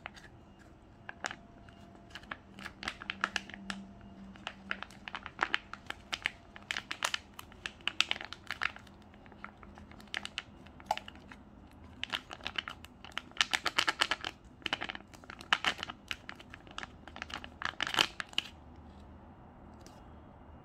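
Foil sauce pouch crinkling and crackling as it is squeezed and worked by hand to empty its contents into the noodle bowl, in irregular clusters of sharp crackles.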